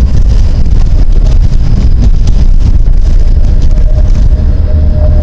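Tram running along its track with a steady low rumble. A faint steady whine joins about four seconds in.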